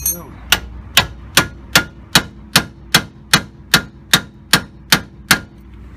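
A hammer striking the steel steering parts of a van's front suspension: about thirteen sharp, evenly paced metallic knocks, roughly two and a half a second, each with a short ring. This is an attempt to work the new track rod end into place, and it is not seating.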